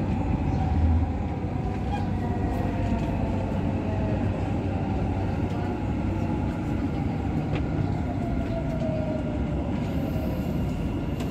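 Dubai Metro train heard from inside the carriage, running with a steady rumble; near the end its motor whine falls in pitch as it slows into a station.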